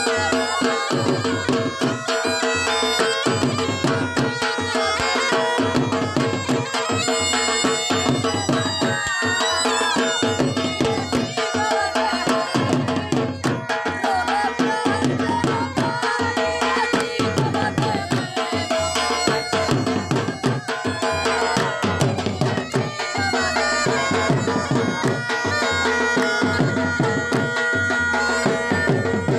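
Background music: a steady drum beat under a held drone, with a melody above.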